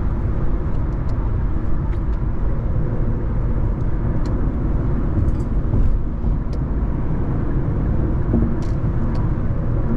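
Infiniti Q50 cruising at highway speed: a steady run of road, tyre and engine noise, deepest in the low range, with no changes in pace.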